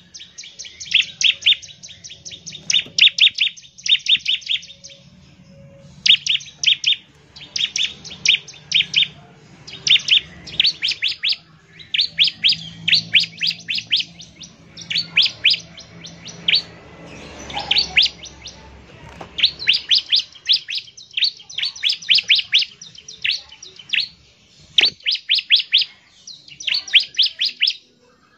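Bar-winged prinia (ciblek) singing in rapid phrases of sharp, high chips that last a second or two each, with short pauses between them. This is the fast, rattling 'ngebren' song used to call other ciblek.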